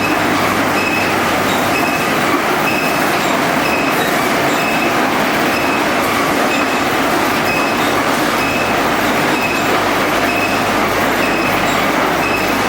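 Loud, steady running of glass-factory machinery with a low hum and a short, high squeak repeating a little under twice a second, as from a rotating part turning over.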